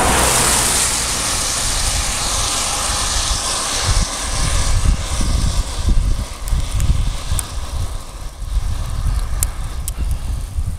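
Wind buffeting the microphone of a bicycle climbing in falling hail, with a hiss that is strongest at the start and fades. In the second half there are a few sharp ticks of hailstones striking the camera.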